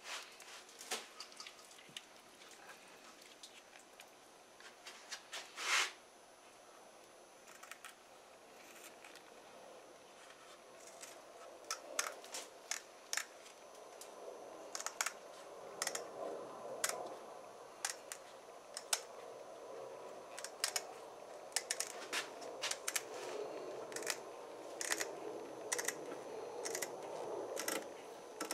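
Kitchen scissors snipping through a flounder's soft fin along the edge of the fish: a series of short, sharp snips, sparse at first and coming thick and fast over the second half, with faint rustling between them.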